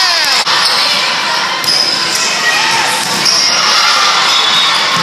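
Volleyball players and spectators shouting and calling out together in a gym, with a sharp knock about half a second in.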